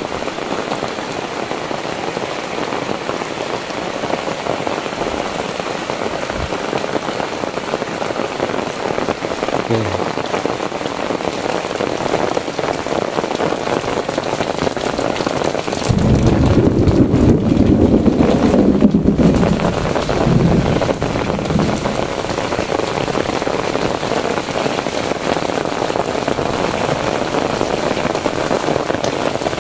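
Heavy tropical rain falls steadily on roofs and concrete paths, with a constant hiss of drops. Just past the middle, a louder low rumble swells for a few seconds and then fades back into the rain.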